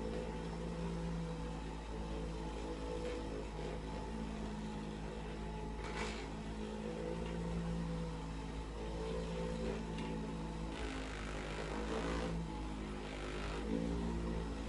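A steady low mechanical hum made of several held tones, with a few short sharp clicks over it, the loudest about six seconds in.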